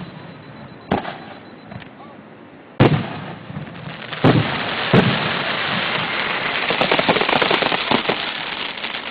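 Fireworks going off, heard through a phone's microphone. There are four sharp bangs: one about a second in, the loudest about three seconds in, and two more close together around four and five seconds. After them comes a dense crackling that fades slightly near the end.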